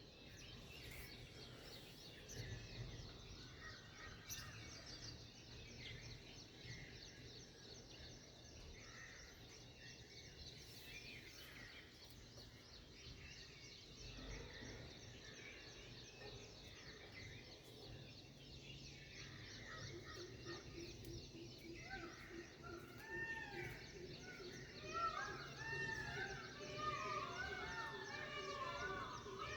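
Morning chorus of several birds chirping and singing. About two-thirds of the way through, a closer bird sets in with many short arching notes repeated quickly, over a low steady hum.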